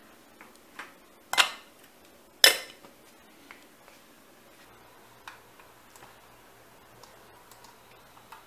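Ceramic cup and bowl clinking sharply twice against each other or the hard desktop, about a second apart, followed by a few scattered light clicks of keys being typed on a computer keyboard.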